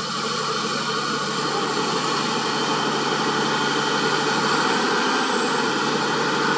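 Heavy dump truck's diesel engine running steadily while it works the hydraulic hoist, tipping the loaded bed to dump soil. It grows slightly louder over the first second or two.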